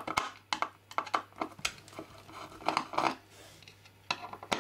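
Hand screwdriver working small screws out of a circuit board in a metal avionics chassis: scattered light metallic clicks and scrapes.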